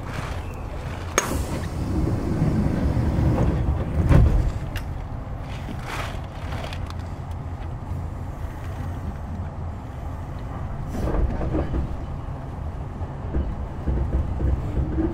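Kintetsu 6020 series commuter train running, heard from inside the car: a steady low rumble with several sharp knocks from the wheels and car body. Near the end a faint whine rises in pitch.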